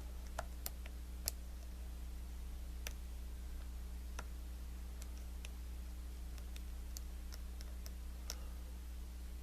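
Faint, irregular small metallic clicks and ticks of a lock pick and tension tool working the pin tumblers of a Lockwood 334B45 high-security padlock during single-pin picking, with a spool pin on pin 4 giving trouble. A steady low electrical hum runs underneath.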